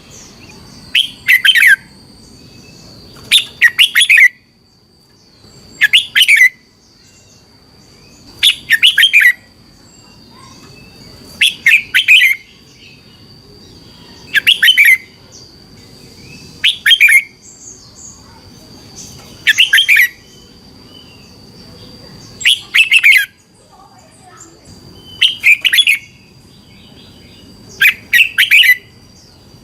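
Red-whiskered bulbul singing short loud phrases of several quick, bright notes, repeated every two to three seconds, the kind of song recording used to train or excite caged bulbuls. A faint steady high tone runs underneath.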